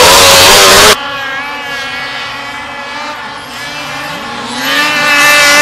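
Snowmobile engines running at high revs up a hill climb. A very loud close engine for the first second cuts off suddenly, leaving a steady high engine whine from further off, which grows louder and higher near the end as a sled comes closer.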